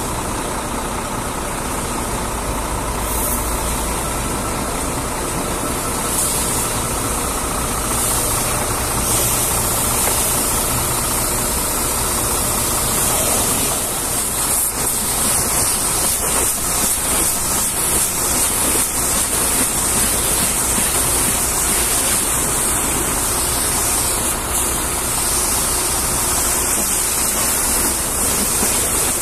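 A motor running steadily with a low hum, under a continuous high hiss of spraying water.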